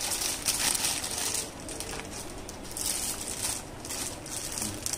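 Clear plastic garment packaging crinkling and rustling in irregular bursts as folded tops are pulled out of their bags and handled.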